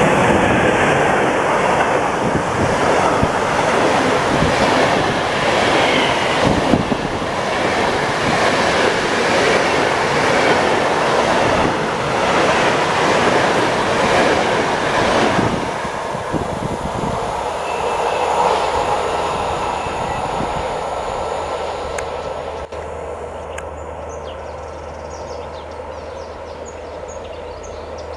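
Bombardier TRAXX Class 386 electric locomotive and its 15-coach passenger train passing close at speed: loud steady rushing of wheels on rail with repeated wheel clicks as the coaches go by. About sixteen seconds in the sound drops and then fades as the train recedes.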